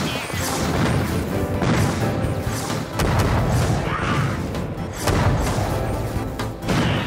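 Action background music under cartoon battle sound effects: energy-blaster shots and explosion booms, with several sharp hits.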